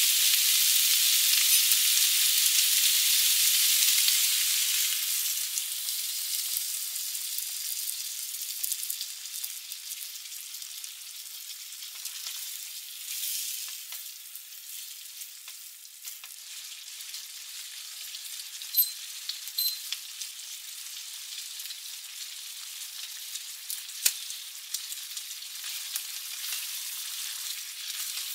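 Sweet-and-sour sauce hitting a hot frying pan of fried pork and vegetables: a loud sizzle for the first four or five seconds, settling to a quieter steady sizzle as the mixture is stirred with a spatula, with a few sharp clicks along the way.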